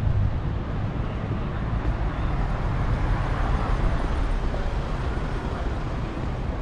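Street traffic noise: cars passing steadily on the road, a continuous rush of engines and tyres.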